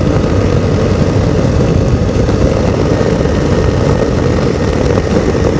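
Hi-Tec Hurricane 103 ultralight's Hirth 3202 two-stroke engine and propeller running steadily at cruise power in flight, heard from an onboard camera with wind rushing over the microphone.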